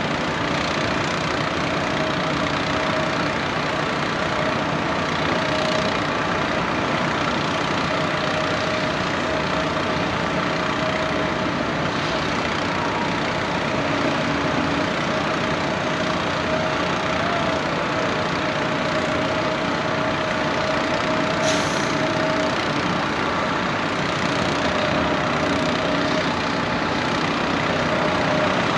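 Heavy diesel engine of an excavator-mounted drill rig running steadily while boring a pile hole in the street, with a steady whine throughout. A short sharp hiss about two-thirds of the way through.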